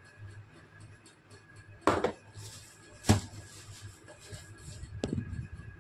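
Handling noise as a small amplifier circuit board is set into its open cardboard box on a table: two sharp knocks about two and three seconds in and a softer one near the end, with light rustling of cardboard and packing in between.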